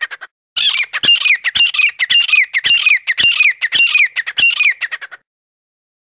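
Francolin calling: a harsh, falling call repeated about twice a second. It starts after a brief gap at the very beginning and cuts off suddenly a little after five seconds.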